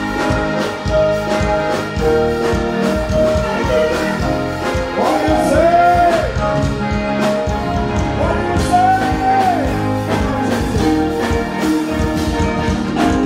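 Live band playing through a stage sound system, with a steady drum beat under held keyboard and guitar notes, and a voice singing a few long, sliding notes.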